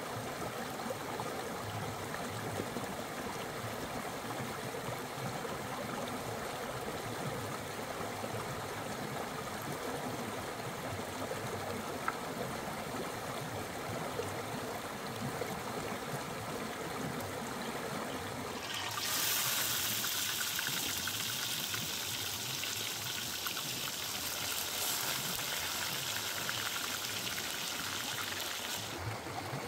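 A river running over rocks as a steady rushing. About two-thirds of the way in, a louder high hiss of whole fish sizzling in hot oil in a wok joins it, and it cuts off shortly before the end.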